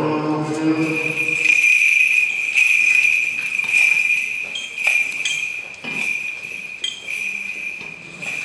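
Small bells jingling continuously with a bright steady ring. Chanting voices stop about a second and a half in.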